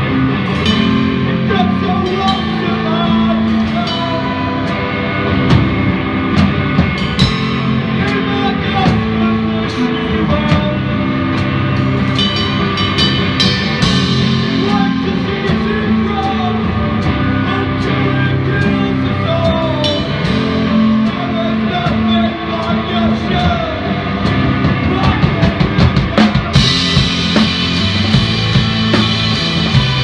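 Rock band playing, with drum kit and guitar, loud and even throughout. About 26 seconds in, the sound suddenly turns brighter in the high end.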